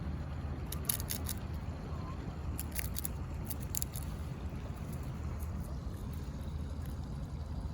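A squirrel making its clicking 'telegraph sounds' as a threat to other squirrels: short bursts of sharp, rapid clicks in the first half, over a steady low rumble of wind.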